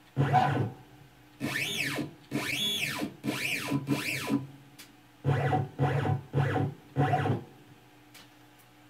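CNC router drive motors jogging the gantry in about nine short moves. Each move is a brief motor whine that rises and falls in pitch.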